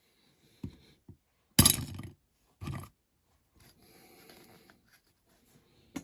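A few knocks and taps of small tools and parts being handled on a work surface, the loudest a sharp knock about a second and a half in, followed by faint rustling and scraping.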